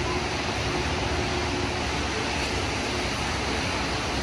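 Steady hiss of falling rain, mixed with the swish of car tyres on the wet road below.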